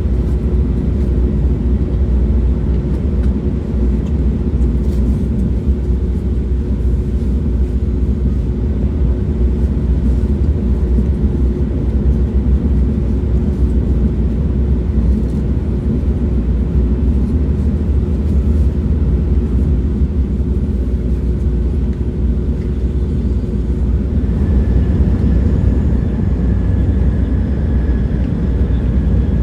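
Train running: a steady, continuous low rumble with a faint steady hum. About 24 seconds in the hum fades and a faint higher whine comes in.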